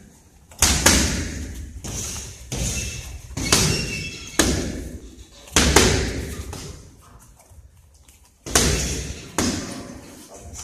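Boxing-glove punches smacking into focus mitts, in quick combinations, each hit sharp and then echoing briefly in the gym hall. About nine hits, with a pause of about two seconds before the last two.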